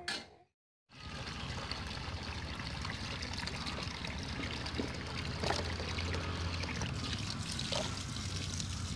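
A stream of water pouring steadily into a clear plastic tub already partly full of water, starting after a brief silence about a second in, with a few faint clicks.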